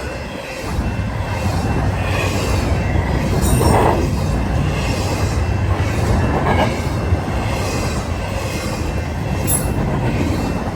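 CPKC freight train rolling past at track speed: a steady rumble of wheels on rail, with faint wheel squeal and a couple of brief louder swells.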